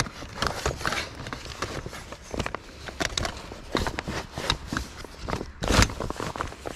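Irregular clicks, scuffs and rustles of a person moving about on foot and handling gear, with one louder thump about six seconds in.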